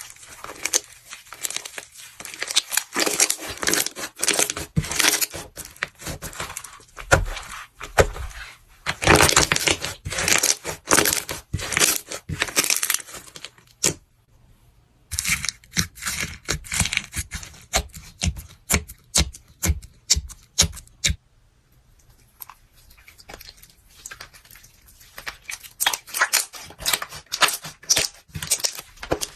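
Close-up crackling and crunching of a crunchy slime-type material being squeezed and pressed by hand, in dense runs of small cracks with two short lulls partway through.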